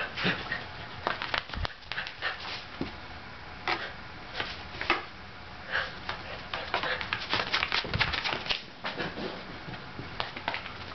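Shetland sheepdog panting and making a quick run of short, sharp huffing sounds as it plays excitedly.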